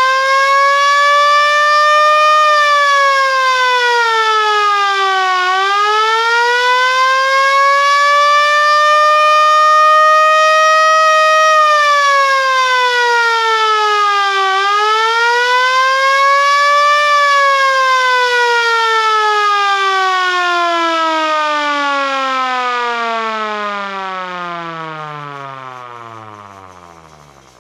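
Motoruch MSS-1 alarm siren wailing, its pitch rising and falling slowly three times. About two-thirds of the way through it starts one long fall in pitch and level, winding down until it dies out at the very end.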